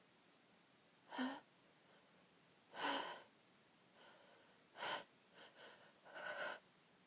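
Four faint, short gasping in-breaths, a couple of seconds apart: the catching breaths of a sneeze building up and not yet coming out, in an allergy sneezing fit.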